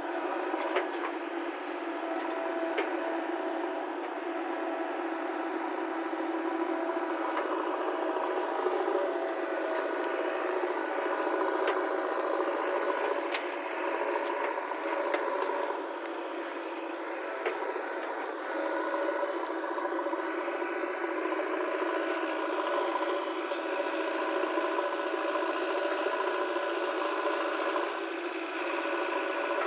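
Backhoe loader's diesel engine running steadily under work, with occasional short knocks and clatter.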